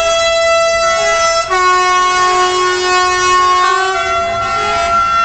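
Truck air horns sounding in long held tones, several notes at once like a chord, switching to a new chord about a second and a half in and again near four seconds.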